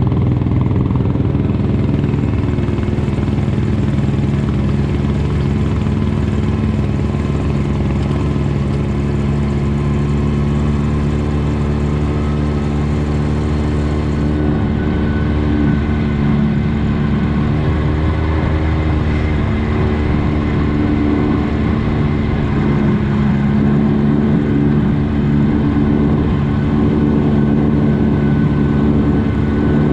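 Off-road vehicle engine running steadily as it is ridden, its pitch shifting a little with the throttle.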